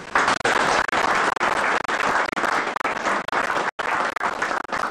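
A small group of people applauding, the clapping breaking out at once and keeping on steadily. The sound cuts out completely for an instant about three-quarters of the way through.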